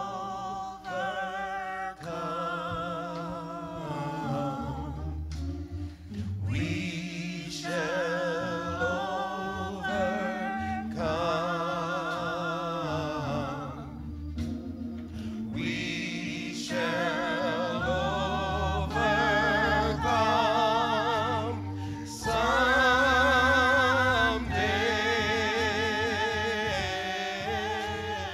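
Gospel singing with heavy vibrato in long sustained phrases over low held accompaniment notes, growing louder toward the end.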